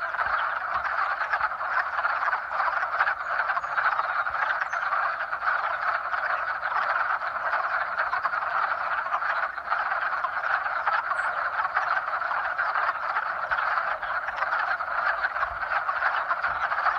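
A dense, steady chorus of many frogs croaking at once, their calls overlapping into one continuous mass: a spring mating chorus.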